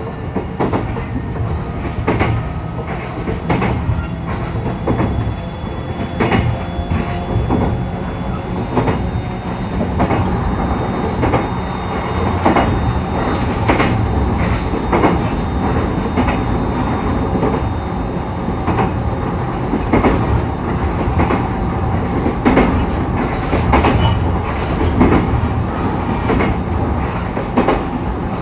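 E129 series electric multiple unit running on jointed track: loud rail-joint clacks ring out from the motored bogie at irregular intervals over a steady rolling rumble. Thin steady whines from the Toyo IGBT inverter drive run alongside. The running grows a little louder about a third of the way in.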